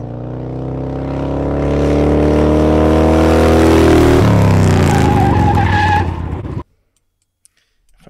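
1986 Harley-Davidson Heritage motorcycle engine, a recorded sound effect, swelling in and rising slowly in pitch. About four seconds in the pitch drops, and the engine cuts off suddenly about six and a half seconds in.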